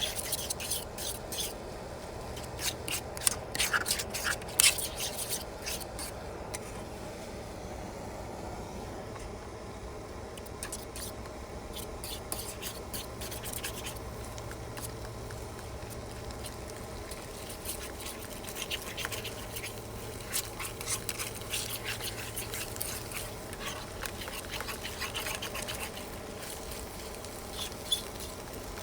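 A utensil scraping and stirring food in a titanium skillet: bouts of quick scrapes and clicks with pauses between them.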